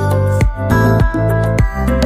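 Background music: sustained chords over a steady beat, a low hit about every half second.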